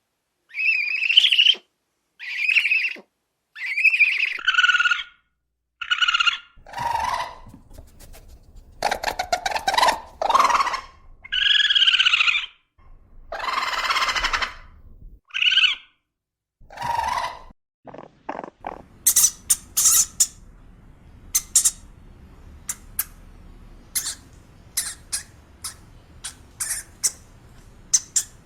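An animal's repeated short, loud calls, each under a second and often falling in pitch. About two-thirds through, these give way to rapid sharp squeaks and clicks.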